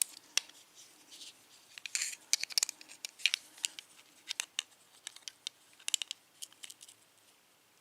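Small metal tools clicking and scraping against a Wilka euro lock cylinder as it is handled with a tension wrench in the keyway: irregular sharp metallic ticks in small clusters.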